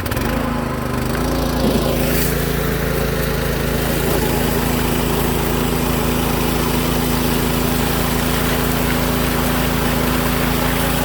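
Small engine of a water pump speeding up as the throttle opens, then running steadily at speed, pumping water for a sluice; a rushing hiss of water joins about two seconds in.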